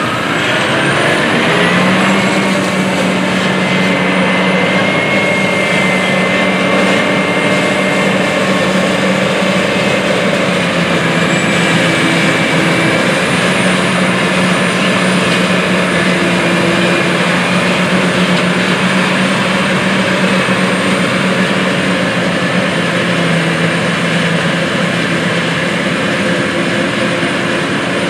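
John Deere 8600 self-propelled forage harvester running steadily under load while chopping corn silage: a heavy engine drone mixed with the dense noise of the crop being cut and chopped. A whine rises in pitch over the first couple of seconds, then holds.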